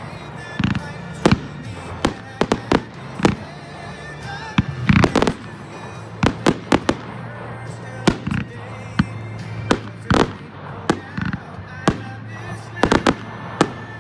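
Fireworks display: more than twenty sharp bangs in quick, irregular succession, some in close clusters, with music playing underneath.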